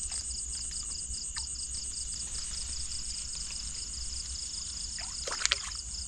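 Night insects chirping in a steady pulsing rhythm, about five pulses a second, over low sloshing water. A brief, sharp splash comes near the end as a hooked fish is handled at the water.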